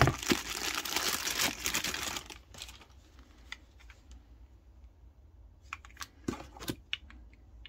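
Clear plastic bag crinkling as a battery charger is unwrapped for the first couple of seconds, then a few light clicks and knocks as the charger and its crocodile-clip lead are handled.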